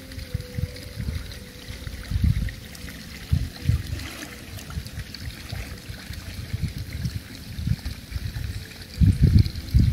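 Pool water lapping and sloshing as a floating body is drawn through it, with irregular low rumbling bursts, the loudest near the end.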